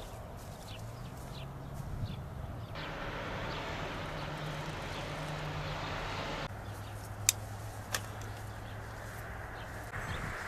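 Outdoor ambience: a steady low road-traffic hum with scattered short bird chirps. The background changes abruptly twice, and two sharp clicks come close together in the second half.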